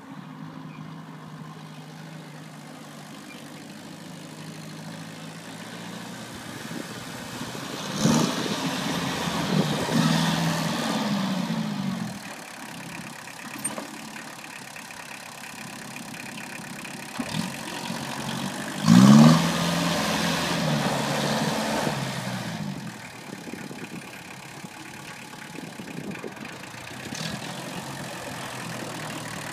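Kubota L285 compact diesel tractor engine running steadily, revving up twice for a few seconds each, about a third of the way in and again past the middle, then settling back.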